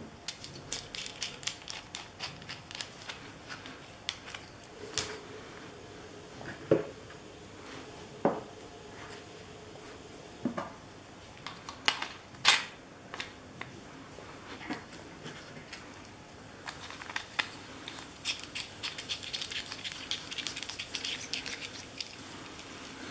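Metal parts of a handheld green laser pointer being handled and screwed together: runs of quick, dry ticking as the tube sections turn, with several sharp clicks and knocks of metal parts in between.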